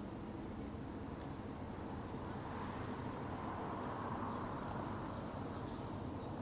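City street ambience: a steady hum of traffic, with one vehicle passing that swells and fades in the middle.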